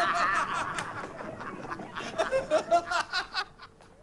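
Hearty laughter, high-pitched and wavering, breaking into short chuckles and dying away about three and a half seconds in.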